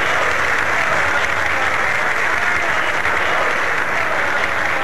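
Sustained applause from a large hall audience, many people clapping at once at a steady level.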